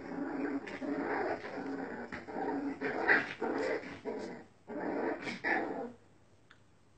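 Puppies growling in play while wrestling: a run of short, broken growls that stops about six seconds in.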